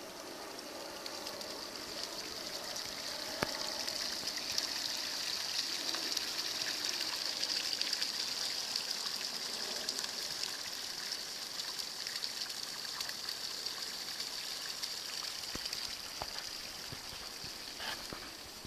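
Water running steadily, as when a flooded rice paddy is drained through a cut in its levee; the flow swells a few seconds in and eases toward the end, with a few faint clicks.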